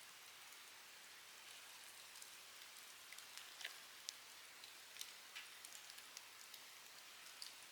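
Faint, steady hiss of light rain, with scattered sharp crackles and ticks from a wood campfire.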